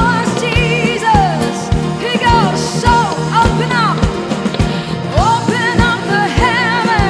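Live worship band music with a steady kick-drum beat, over which a voice sings long, sliding notes with vibrato and no clear words.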